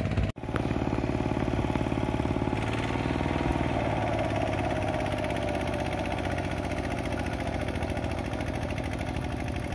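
Power tiller's single-cylinder diesel engine running steadily under load as the walking tractor works through deep paddy mud, with a brief break in the sound a fraction of a second in.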